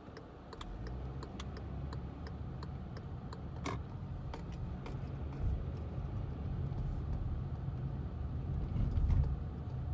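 Car driving, heard from inside the cabin: a steady low road and engine rumble that swells near the end, with light, regular ticking about three times a second in the first few seconds.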